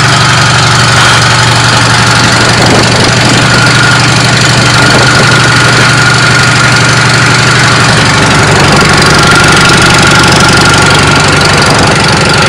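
Car engine running loud and close, a steady low hum with a faint whine above it; partway through, its low note takes on an even, rapid pulsing.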